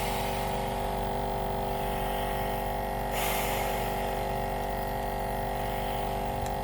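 Nebulizer air compressor running with a steady hum of several fixed tones. A brief hiss about three seconds in, like a breath through the mask or tube.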